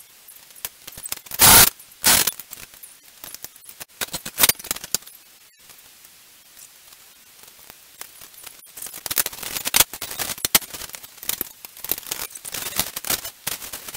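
Handling noise at a hydraulic shop press: two loud metal knocks about a second and a half in, then scattered clicks and a long stretch of crinkling and rustling packaging.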